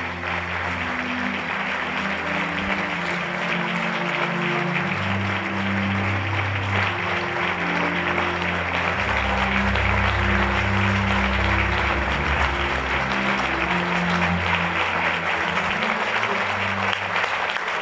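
Audience applauding over background music with sustained low notes; the applause swells and is loudest around the middle.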